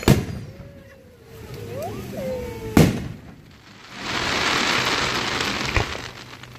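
Aerial fireworks shells bursting: a loud bang at the start and another about three seconds later. These are followed by about two seconds of dense crackle as a glittering burst spreads.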